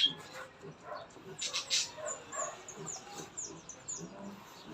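A quick run of short, high, falling bird chirps about two seconds in, over scattered small clicks and crunches.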